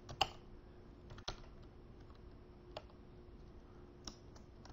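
Computer keyboard typing: a handful of separate keystrokes spread out, the loudest about a quarter of a second in.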